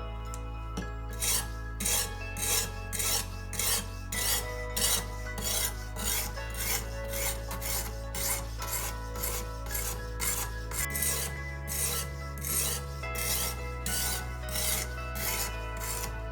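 Sharpening stone on a Ruixin Pro guided sharpening system drawn along a kitchen knife's edge, rasping strokes about two a second.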